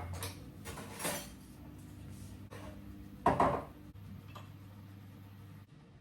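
Household objects being handled: three separate clatters, the loudest about three seconds in, over a steady low hum.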